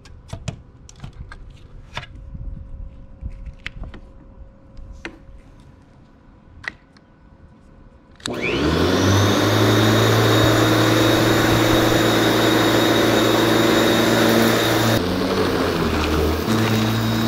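Scattered clicks and knocks of an extension cord being plugged into an outlet and connected to the mower, then about eight seconds in the Ryobi 13-inch corded electric mower's motor starts, spinning up quickly to a loud, steady whine. About fifteen seconds in its pitch sags briefly as it cuts into tall, overgrown grass.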